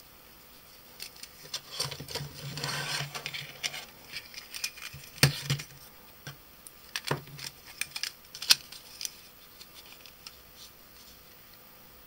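Small plastic parts of a mobile phone being handled and fitted together: scattered clicks and rustling of the casing, circuit board and wires, with the sharpest clicks about five and eight and a half seconds in.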